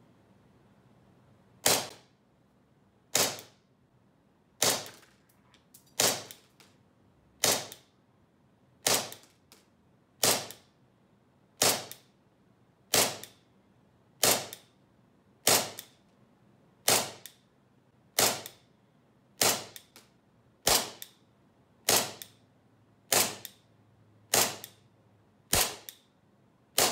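SRC SR92 full-metal gas blowback airsoft pistol firing single shots on green gas: about twenty sharp cracks, one every second and a bit, with the slide cycling on each. The magazine is emptied, and on the last shot the slide locks open.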